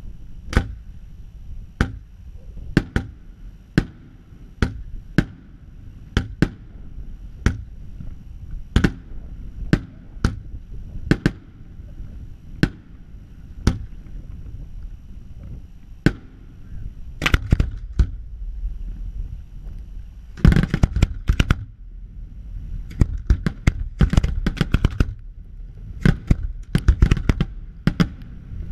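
Fireworks display: single sharp bangs about once a second over a low rumble, then from about 17 s in quicker volleys of bangs that crowd together toward the end.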